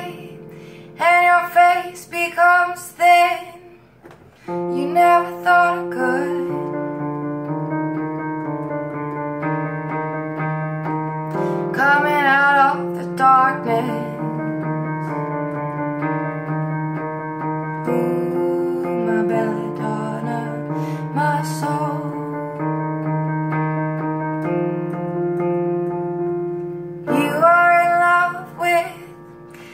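A woman singing with vibrato to her own electronic keyboard, which plays sustained chords. The sung phrases come and go, and the keyboard carries on alone for several seconds between them.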